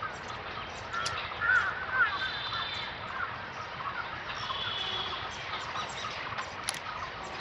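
Several crows cawing, with many short calls overlapping, over a steady background noise.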